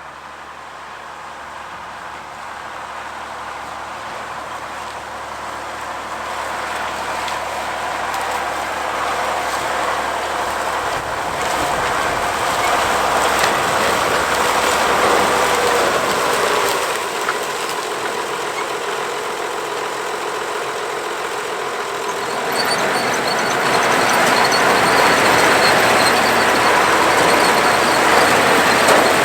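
Oliver 1655 tractor pulling a two-row New Idea 324 corn picker in corn, its engine and the picker's machinery running steadily and growing louder throughout as the rig draws closer. About three-quarters of the way through, the picker's rushing clatter gets louder and fuller.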